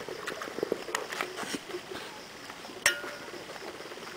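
Scattered light clicks and taps, with one sharp clink about three seconds in that rings briefly.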